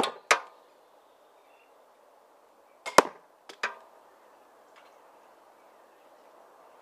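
Two 80 lb pistol crossbow shots into a denim-covered foam backstop, about three seconds apart. Each is a sharp snap and knock of string and bolt strike, followed within half a second by one or two smaller knocks.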